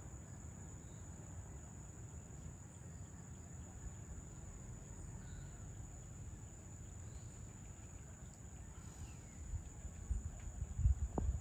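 Evening insects trilling in one unbroken high note, over a low outdoor rumble. Near the end a few louder low bumps break in, like wind buffeting the microphone.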